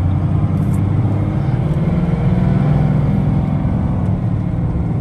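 1994 Dodge Ram's 12-valve 5.9 L Cummins turbo diesel pulling under heavy throttle from about 1750 rpm, heard from inside the cab, its note climbing over the first couple of seconds and then holding. Boost builds slowly: the turbo lag that the owner thinks is tied to the fuel stop plate and the AFC setting.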